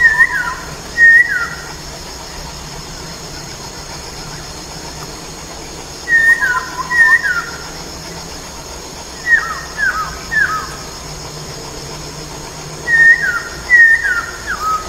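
Black-throated laughingthrush singing: four phrases of loud, clear whistles, each note gliding down in pitch, with pauses of a few seconds between phrases.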